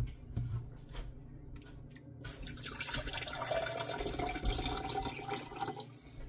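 Water poured from a glass kettle into a ribbed glass tumbler, after a few light knocks as the kettle is handled. About two seconds in a steady splashing stream starts, and its pitch rises as the glass fills.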